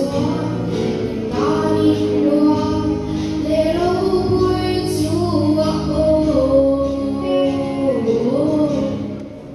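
A girls' vocal group sings a hymn together through microphones over steady instrumental backing. The singing dips briefly between phrases near the end.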